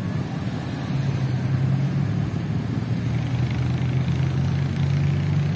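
A motor vehicle's engine running steadily, a low, even hum.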